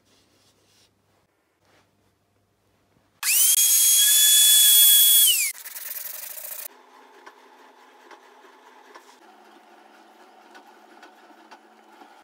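A power tool's electric motor whines up to speed with a high pitch, runs for about two seconds and winds down. Faint rubbing of wood being handled follows.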